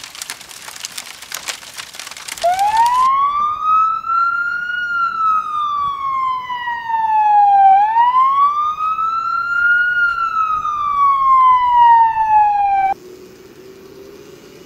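Wailing siren sound effect, a fire-alarm wail, rising and falling slowly twice, starting about two seconds in and cutting off abruptly near the end. Before it, a dense crackle of fast ticks; after it, a faint steady low tone.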